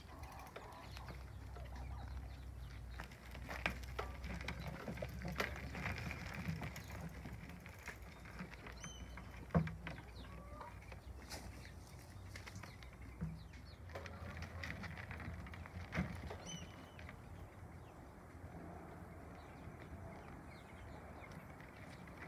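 Bicycle towing a two-wheeled wooden cart over a dirt road: a steady crunch of tyres on dirt and gravel, with a few sharp knocks as the cart goes over bumps, the loudest about halfway through.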